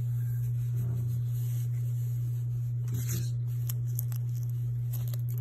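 Soft rustling and scraping of a plush toy's fur and fabric being handled, with a few faint scrapes between about three and five seconds in, over a steady low hum.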